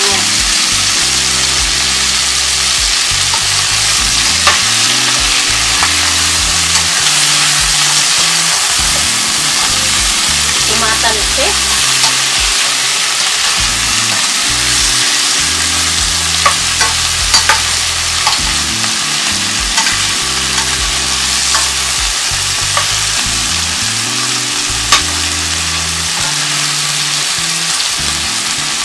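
Chicken pieces frying in oil in a stainless steel sauté pan, a loud, steady sizzle with sharp pops and clicks now and then, as a spatula stirs and turns the meat in the pan. The chicken is at the stage of cooking through after browning.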